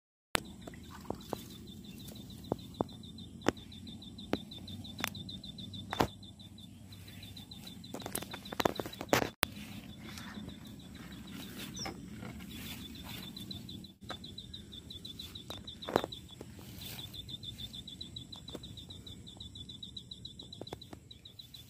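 A fast, high-pitched chirping trill from a small animal, repeating on and off, over low steady background noise, with sharp clicks and knocks now and then.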